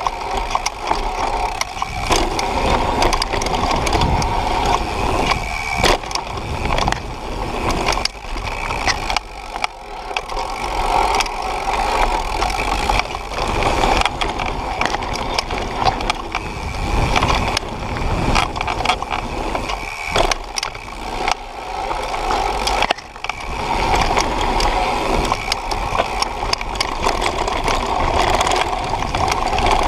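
Propain Tyee mountain bike riding fast down a dirt and gravel trail, heard through a camera mounted on its frame: continuous tyre roar on the loose surface, with the chain and frame rattling and knocking over bumps. The noise dips briefly about three-quarters of the way through.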